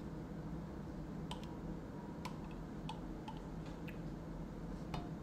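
A metal spoon clicking lightly against a glass jar as cherries are fished out: about eight small, scattered clicks, some with a brief ring, over a low steady room hum.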